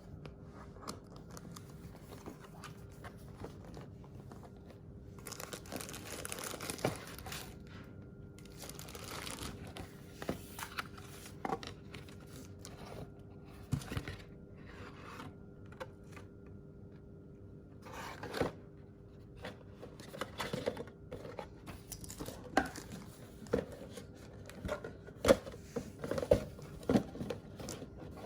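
Packaging being unwrapped by hand: bouts of tearing and crinkling, with short clicks and taps from handling that come thicker in the last third.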